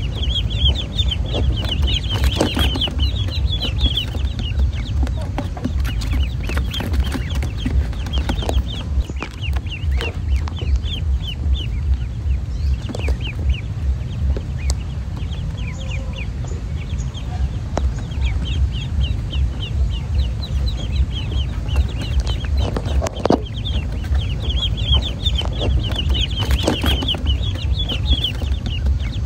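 Ducklings peeping: bursts of rapid, high, short chirps that come and go, over a steady low rumble.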